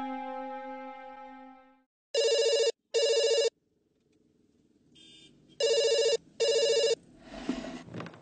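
Background music fades out, then a telephone rings in the classic double 'ring-ring' pattern: two pairs of rings with a pause between them. A soft rustle comes near the end.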